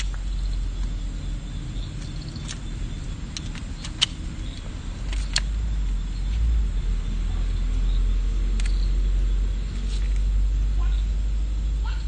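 Steady low rumble with scattered sharp crackles of stiff paper as a paper hot-air balloon is unfolded and crumpled by hand.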